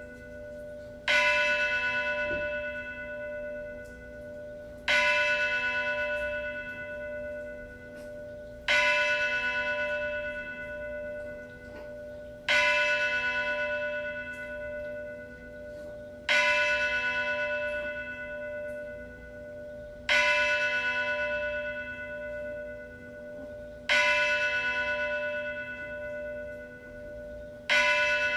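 A single church bell tolling slowly, struck eight times at the same pitch about every four seconds, each stroke ringing on and fading into a lingering hum before the next.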